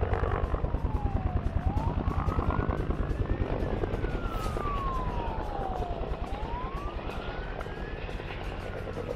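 Helicopter rotor chopping with a rapid, even beat, while a siren wails slowly up and down behind it, rising and falling about every two and a half seconds.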